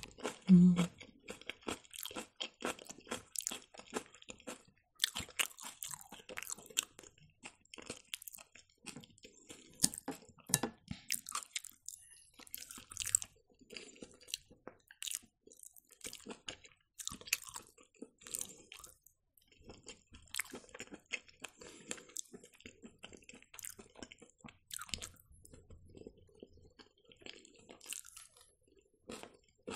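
Close-miked eating sounds: irregular wet smacks, clicks and chewing of fried mushrooms, with a low thump just after the start.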